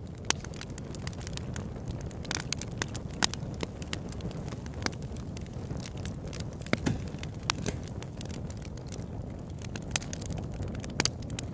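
Fire crackling: a steady low rumble with sharp pops and snaps scattered irregularly through it.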